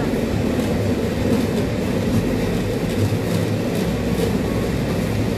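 A pedal-powered rail bike's steel wheels rolling along the rails, a steady low rumble with a few faint clicks.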